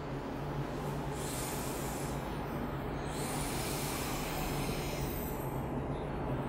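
Master Art coloured pencil shading on paper, a continuous scratchy rubbing that grows stronger about a second in, over a steady low hum.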